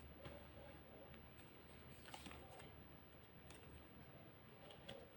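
Near silence: room tone with a few faint, short ticks of tarot cards being handled and laid out.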